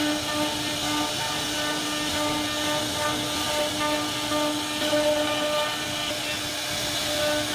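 CNC router spindle running and carving wood with its bit: a steady whine over the hiss of the cut.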